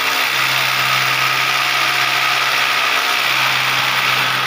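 Corded electric drill running at a steady speed, boring a hole into a plastered wall.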